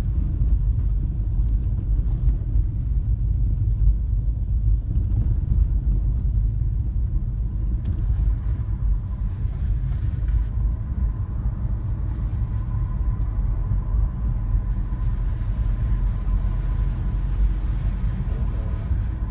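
A car being driven on the road: steady low road and engine rumble heard from inside the moving car.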